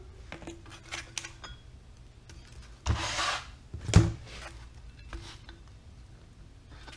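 Hand tools working on a metal boom pulley as it is taken apart. There are light metal clicks, a short burst of scraping about three seconds in, and a sharp metal knock with a dull thud a second later.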